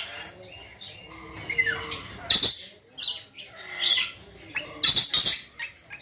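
Caged birds in a pet bird shop chirping and squawking: short, high-pitched calls from several birds, coming about every second.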